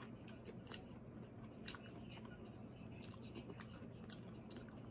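Close-up chewing of a mouthful of broccoli, with crisp, irregular crunches and wet mouth clicks.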